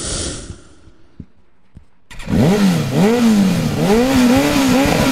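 Edited-in sound effects: a whooshing swell that fades about a second in, then after a short pause a loud warbling tone whose pitch rises and falls over and over.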